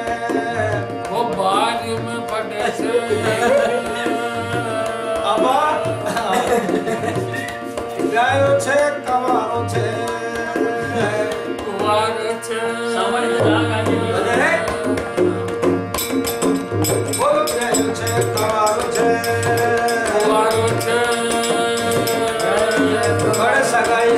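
Rajasthani folk bhajan music: a dholak barrel drum played by hand in a steady beat under a keyboard's sustained chords, with a voice singing the melody.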